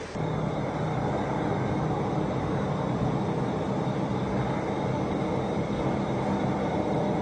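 A steady low rumbling hum with a faint pitched drone running through it, even and unchanging.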